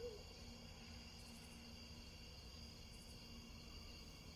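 Near silence with a faint, steady high-pitched trilling of insects.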